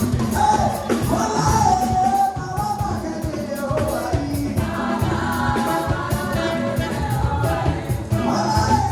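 Live gospel praise medley: sung voices, with a choir-like blend, over a band with steady drums.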